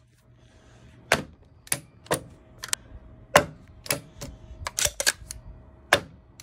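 Cordless nailer firing nails from a collated strip into a wooden bottom plate: about ten sharp shots, roughly every half-second, starting about a second in.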